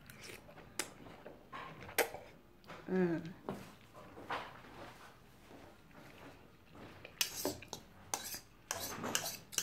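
Metal fork clinking and scraping against a ceramic bowl of lo mein noodles, with scattered single clinks and a quick run of clinks near the end. A short hum from the eater about three seconds in.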